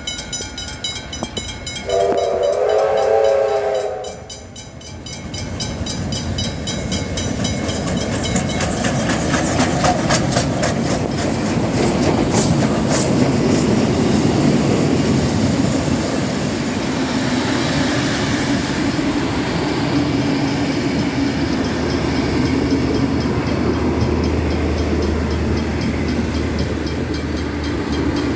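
Steam locomotive's whistle sounding a chord for about two seconds near the start. Then the steam train passing close by: a rumble builds and holds, with quick clicking of wheels over the rails, and a steady low hum joins near the end.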